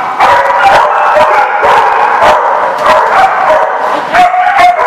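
Dogs barking over and over, about two barks a second, with a held higher-pitched whine near the end.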